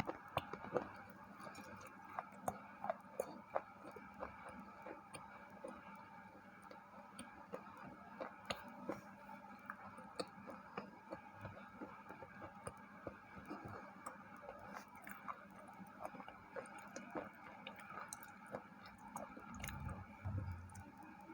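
Close-up chewing of a white KitKat, a chocolate-coated wafer bar: faint crisp crunches and mouth clicks, densest in the first few seconds and more scattered after.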